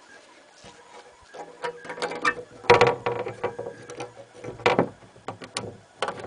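Irregular mechanical clicks and knocks from hands handling hardware, heaviest about three seconds in and again near five seconds.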